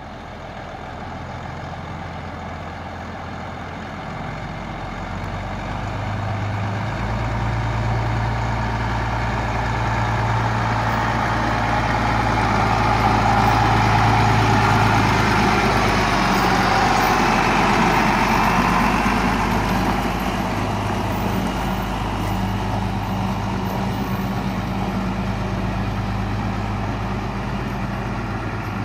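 Shunt yard truck's engine running steadily as the truck drives past over gravel, growing louder to a peak about halfway through and then easing off a little, with a noise of tyres on gravel.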